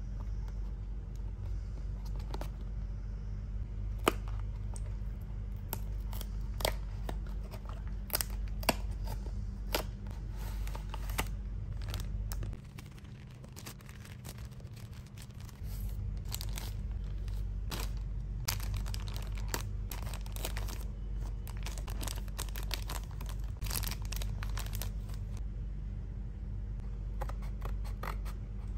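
Unboxing handling noise: a paperboard toy box and a clear plastic bag being handled, crinkled and cut with small scissors, giving an irregular run of sharp clicks, crackles and snips over a steady low hum.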